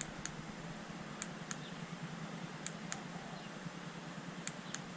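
Four pairs of small sharp plastic clicks at uneven spacing, the press and release of buttons on the LED light bar's handheld remote as its colours are stepped through, over a steady low hum.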